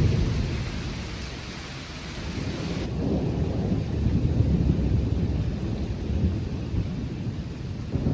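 Long rolling thunder rumbling continuously, easing off a second or so in and building again from about three seconds in.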